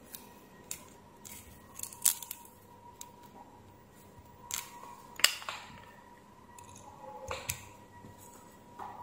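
Scattered small clicks and scrapes from a wooden stick and fingers working inside a cordless drill's plastic gearbox housing, with sharper knocks about two and five seconds in. A faint steady hum runs underneath.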